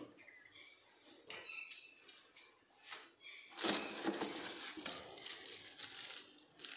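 Unpacking noises: a few light clinks of small loose parts about a second in, then crinkling of a clear plastic bag as it is lifted out of a cardboard box.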